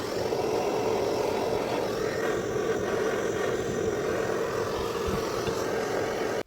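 Hilti TE 76 rotary hammer running steadily under power, then cut off suddenly.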